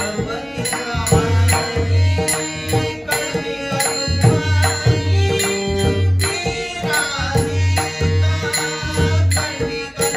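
Marathi abhang bhajan music: pakhawaj drum strokes in an even rhythm under held instrumental tones and a wavering sung melody.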